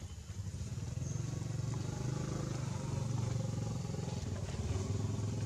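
A low, steady engine rumble, growing louder about a second in and holding.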